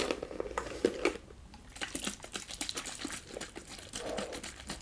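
Rapid fingernail tapping and clicking on a plastic spray bottle of hair product, a quick irregular run of short crisp taps.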